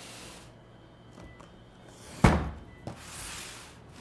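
A large cardboard collector's box being handled. There is a loud thunk about two seconds in, a smaller knock just after it, and cardboard sliding and rustling around them.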